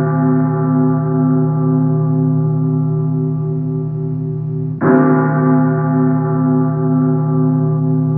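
Deep church bell tolling: one strike about five seconds in, with the ring of the previous strike filling the start. Each strike hangs on in a long, slowly pulsing hum.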